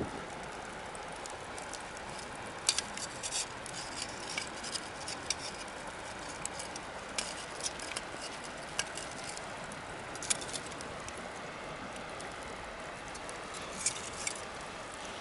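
Bonfire of burning wood crackling, with scattered sharp pops over a steady low hiss. The pops bunch together about three seconds in and again near the end.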